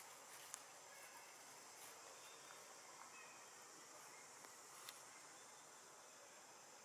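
Near silence, with a faint, steady, high-pitched drone of insects and two faint clicks, about half a second in and near five seconds in.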